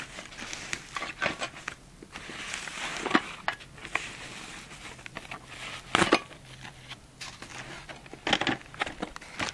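Packaging being opened and handled: irregular crinkling and rustling with scattered clicks, and three louder sharp knocks spread through.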